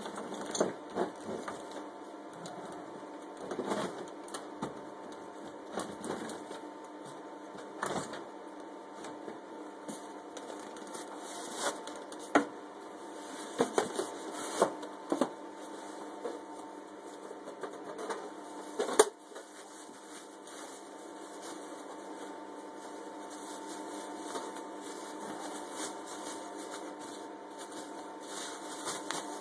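Unpacking noises: irregular clicks, knocks and rustles of a box and its contents being handled, with sharper knocks about 12 and 19 seconds in, over a faint steady hum.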